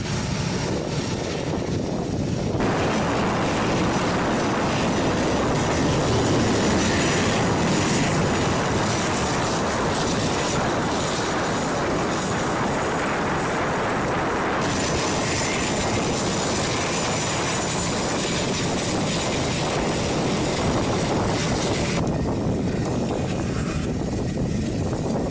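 Jet engines of A-10 Thunderbolt II attack jets (General Electric TF34 turbofans) running on the ground: a steady rushing noise with a thin high whine. The sound changes abruptly three times, about two and a half seconds in, around fifteen seconds and around twenty-two seconds.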